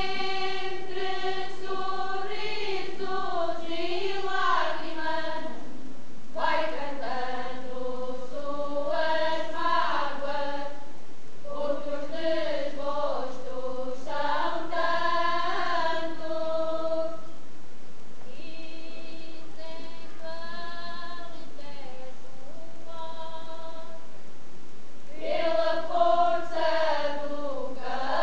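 Folk choir of women and girls singing an Alentejo folk song, slowly and in long phrases with short breaths between them. For several seconds past the middle only a few higher voices carry the line, then the full group comes back in near the end.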